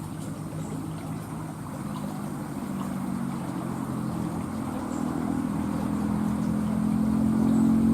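A motor engine running steadily, growing louder as it draws nearer.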